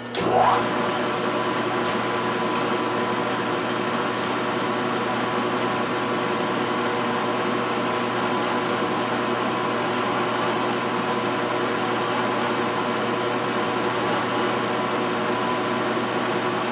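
Drill press motor starting up and then running steadily with a constant hum and whine while a countersink chamfers the top edge of a freshly tapped hole in a cylinder head.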